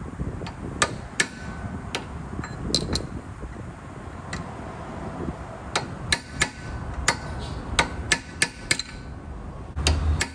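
Hammer striking a punch held on the axle nut's lip, staking the nut into the notch in the axle shaft so it cannot loosen. About fifteen sharp metallic taps at uneven intervals, some with a brief ring.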